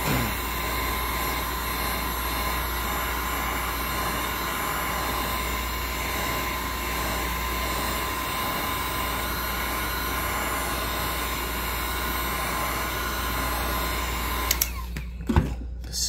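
Heat gun running steadily: a blower's rush with a steady whine on top. It shuts off near the end, followed by a couple of light knocks.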